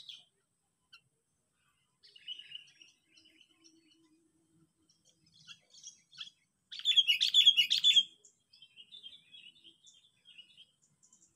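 Sooty-headed bulbul (kutilang) decoy bird calling in short bursts of quick chirping notes, the loudest burst about seven seconds in: a lure call to draw in wild bulbuls.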